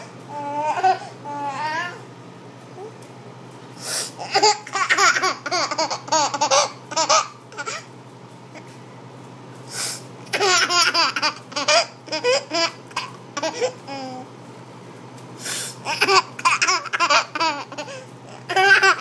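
An 11-month-old baby laughing hysterically in four separate fits. Each fit follows a short, noisy sniff, the sniffling that sets the laughter off.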